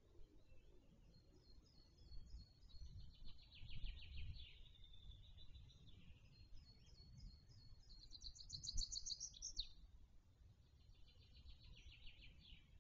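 Faint songbird song: three trilled phrases, each two to three seconds long, over a low background rumble.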